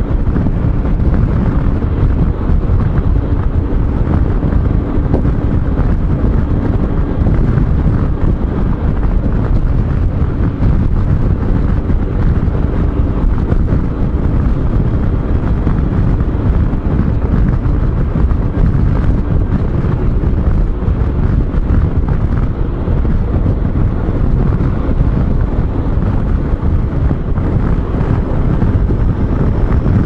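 Loud, steady wind buffeting on the microphone of a scooter rider at road speed, with the scooter's engine and road noise underneath.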